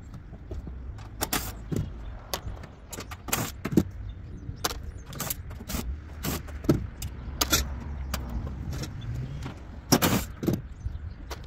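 Sharp, irregular metal clanks and clinks from sheet-metal panels, screws and tools being handled while an air-conditioning unit is dismantled, with a cluster of louder knocks about ten seconds in, over a steady low rumble.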